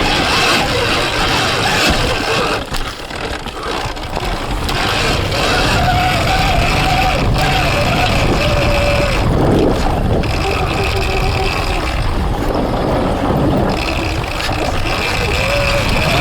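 Surron Ultra Bee electric dirt bike with a TORP TM50 Pro motor being ridden over rough, muddy ground: the motor's thin whine rises and falls in pitch with the throttle over a constant rush of tyre, terrain and wind noise. The loudness dips briefly about three seconds in.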